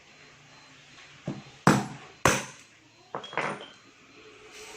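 Five sharp metallic knocks in about two seconds. The two loudest come near the middle, and one of the last two leaves a short high ring.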